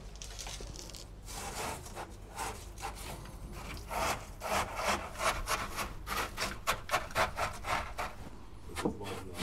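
Lava granulate trickling from a measuring cup, then a hand pushing and rubbing the gritty granules into place among rocks in a dry aquarium: a run of rough scraping strokes, about two to three a second.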